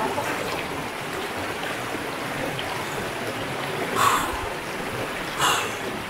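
River water running steadily, with two brief louder noises about four and five and a half seconds in.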